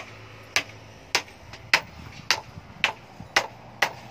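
Hand hammer striking a steel spade blade on a rusty steel anvil block, eight even blows at about two a second, as the blade is forged into shape.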